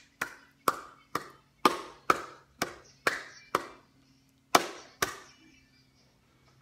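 Hand claps in a steady rhythm, about two a second: eight in a row, then a short pause and two more.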